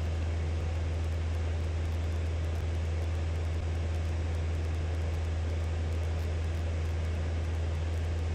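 Cabin noise of a Robin DR500 single-engine light aircraft in flight: a steady low engine-and-propeller drone with an even hiss of airflow over it, unchanging throughout.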